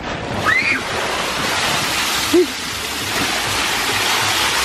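Water from a tarp-lined pickup truck bed pool gushing out and splashing onto a concrete driveway as the pool is drained, a steady rush.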